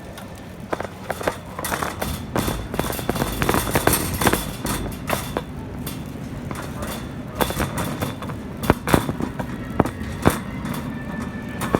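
Irregular clicks and clattering knocks from walking with the dog through the store, over a steady low background hum.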